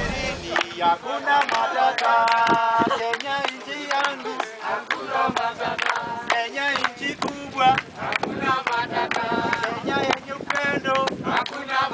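A group of men singing together in unison while clapping their hands, sharp claps over the chanted song. The tail of a produced music track cuts off about half a second in.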